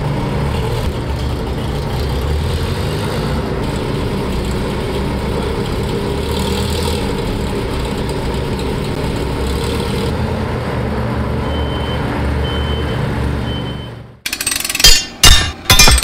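A small wheeled armoured car's engine running steadily as the vehicle drives by. In the last two seconds it gives way to a burst of loud sharp knocks.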